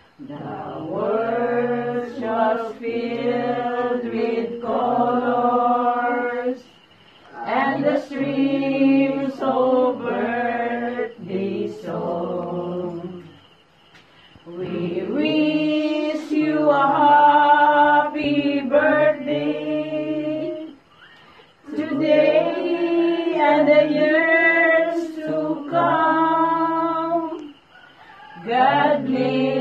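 A group of voices singing together in long held phrases of about six to seven seconds, with short pauses between them.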